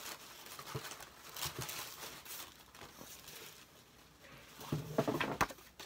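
Paper and packaging rustling and crinkling as items are handled and sorted, with a few light taps; a short hummed murmur of voice near the end.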